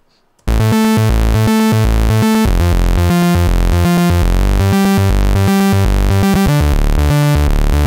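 Logic Pro 'Super Fat Moog' synth lead playing a fast arpeggio of sixteenth notes, running up and down over three octaves from a single held key. It starts about half a second in, and the arpeggio's pitch shifts a few times as different keys are held.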